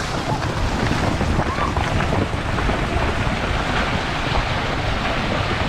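Wind buffeting the microphone outdoors: a loud, steady rushing noise with a gusty low rumble.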